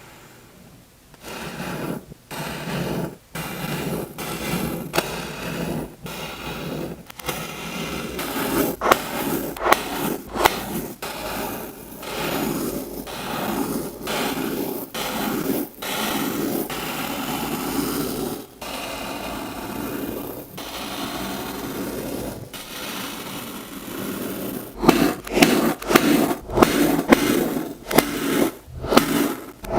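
Kinetic sand being scraped and cut in repeated gritty strokes with short pauses between them, the strokes becoming louder and more separate near the end.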